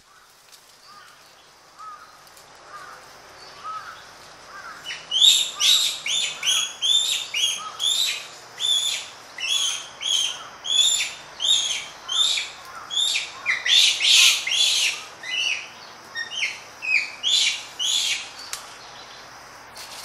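Japanese macaques screaming close up in aggressive calls: a fast run of loud, high-pitched screams, about two a second, starting about five seconds in after a few faint short calls.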